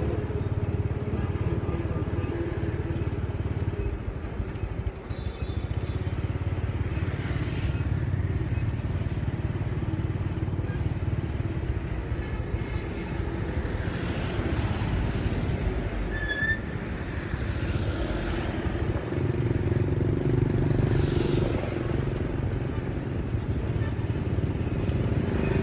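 Motor scooter engine running steadily at low riding speed, a continuous low hum.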